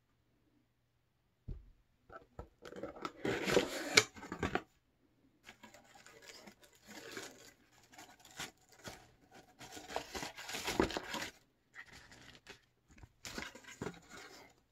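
A cardboard box being opened by hand and its crinkled brown honeycomb kraft-paper packing rustled, crumpled and torn, in irregular stretches. A single knock comes about a second and a half in, before the rustling starts.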